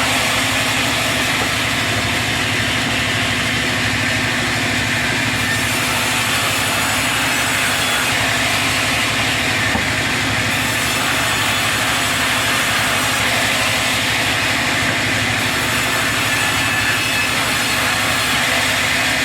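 Sawmill saw running steadily and cutting through a log, a continuous machine drone with the rasp of the blade in the wood.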